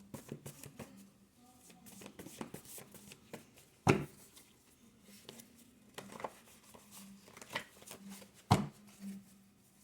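Faint rustles and light clicks of cards being handled, with two sharper taps, about four seconds in and near the end.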